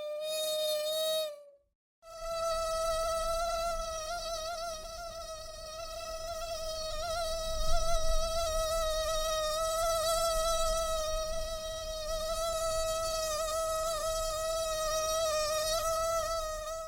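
Mosquito in flight: the high-pitched buzzing whine of its wingbeats, wavering a little in pitch. It stops for about half a second near the start, then picks up again and carries on steadily.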